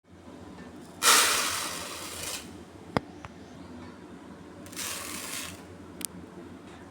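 Kitchen preparation noises: a loud rushing sound about a second in that fades over a second or so, a sharp click, a second shorter rush, and another click near the end.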